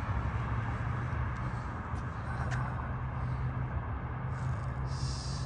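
Downtown outdoor ambience: steady traffic noise under a constant low hum, with a single sharp click about two and a half seconds in and brief hissing near the end.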